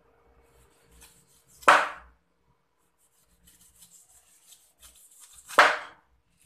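Knife cutting strips of rind off a whole pineapple, twice. Each stroke crackles through the tough skin for about a second and ends in a loud hit of the blade on the plastic cutting board.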